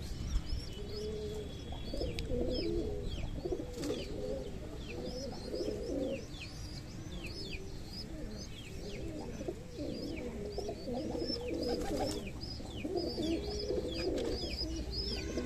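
Domestic pigeons in their loft cooing, many low coos overlapping without a break. Short high chirps repeat over the cooing.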